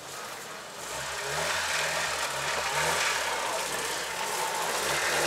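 Prepared UAZ off-road vehicle's engine working through the course, revving up and down in short repeated pulls. It grows louder about a second in.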